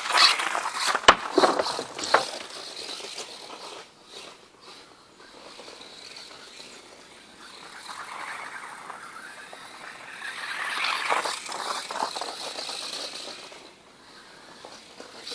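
Four-wheel-drive RC truck running through snow, its tires churning and scraping, with a sharp knock about a second in. The noise is loudest at the start, fades, then swells again for a few seconds near the end.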